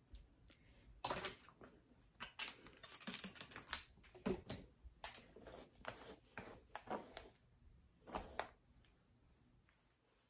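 Faint, irregular taps, clicks and rustles of hands handling a freshly wetted wig, dying away for the last couple of seconds.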